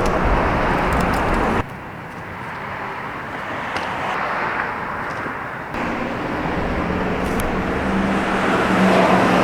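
Steady road noise of a moving car, with a low engine hum coming in near the end; the sound changes abruptly twice, as separate clips are cut together.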